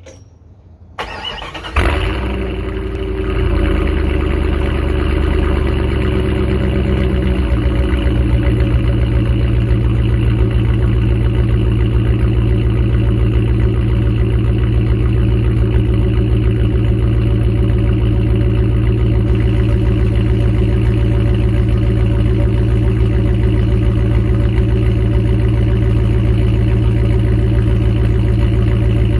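1998 Jeep Grand Cherokee 5.9's V8 exhaust, running through a Hellcat Charger factory muffler and resonator with no catalytic converter: the engine cranks briefly about a second in, catches with a loud flare, then settles into a steady, lumpy idle that drops a little about seven seconds in.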